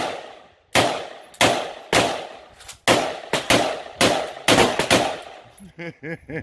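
AR-15 rifle firing a steady string of semi-automatic shots, about ten in six seconds, each with an echo that trails off. The rifle is cycling reliably on its first run.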